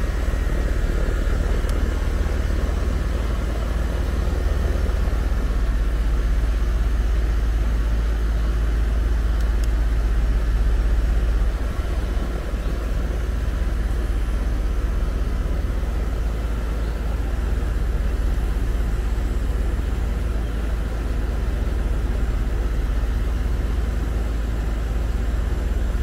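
1.5-ton Lennox heat pump outdoor unit running steadily, its compressor and condenser fan giving a constant low hum with a fan airflow rush.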